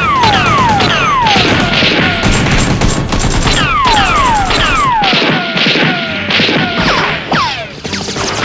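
Movie-style gunfire sound effects in a staged shootout: rapid shots and impacts mixed with many whistles that fall steeply in pitch, like bullets whizzing past. The shots thin out a little past the middle, then pick up again.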